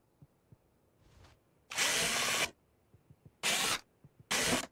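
Power drill driving screws in three short bursts, the first the longest, each cutting off abruptly, after a faint brief whir about a second in.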